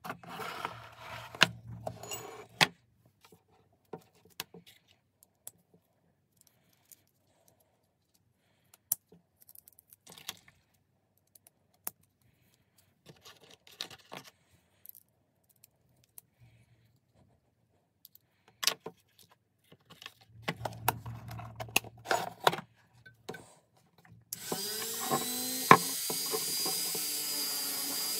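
Metal tool parts clinking and knocking as they are handled, in scattered taps. Near the end a small high-speed power tool, such as a rotary tool or drill, spins up and runs steadily.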